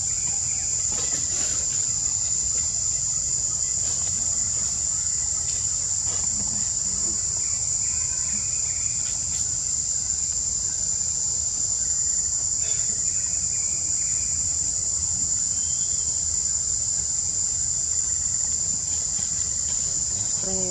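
A steady, high-pitched chorus of insects, unbroken throughout.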